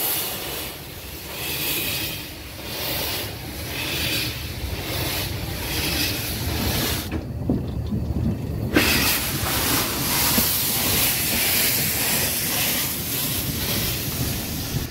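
Saxon VI K narrow-gauge steam locomotive starting a train, chuffing in beats about a second apart at first, with loud hissing steam from its cylinders as it passes close by.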